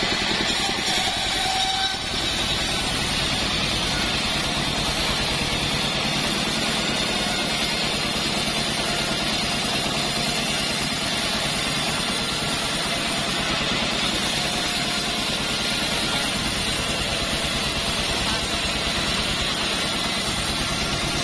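Engine-driven mobile bandsaw mill running steadily while its blade saws lengthwise through a hard, heavy acacia log.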